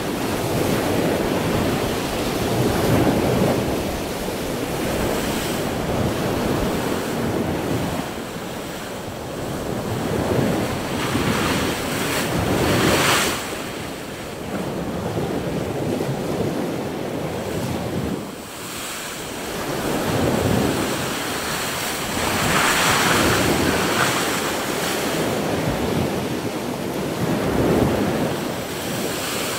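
Storm surf surging against a metal seawall: waves break and wash up the wall in repeated swells, with splashes loudest about 13 and 23 seconds in. Wind buffets the microphone throughout.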